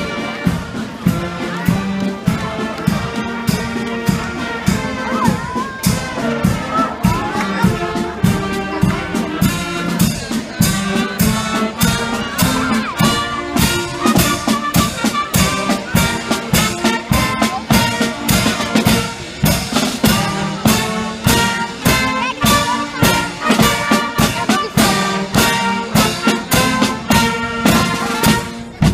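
Marching band playing: brass, saxophones and clarinets over bass drum, snare and cymbals keeping a steady beat.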